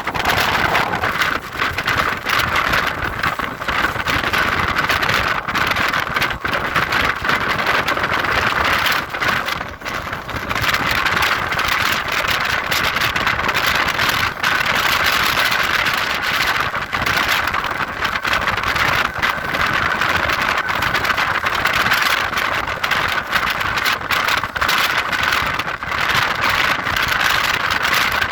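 A moving train running steadily, with dense rolling noise and many short knocks and rattles throughout.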